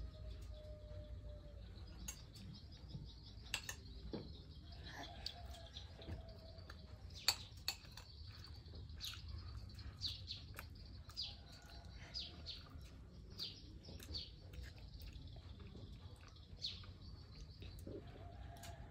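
Small birds chirping repeatedly in short high calls, with a few sharp clicks, likely a metal spoon against a ceramic plate, over low background noise.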